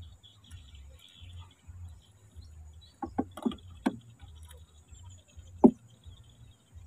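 Hollow knocks on the wooden hull of a small canoe as a fishing rod and reel are handled: a quick cluster of about four knocks about three seconds in, then one louder single knock near the end, over a low, uneven rumble.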